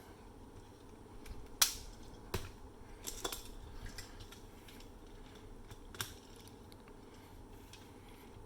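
Plastic parts of a transforming toy robot clicking and snapping together as they are connected. A sharp click comes about one and a half seconds in and is the loudest; a few softer clicks follow, with a last one about six seconds in.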